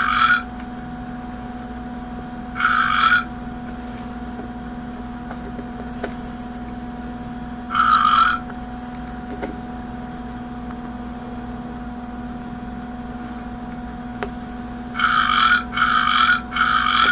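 An alligator making short, pitched burp-like calls, each about half a second long. Single calls come several seconds apart, then three in quick succession near the end.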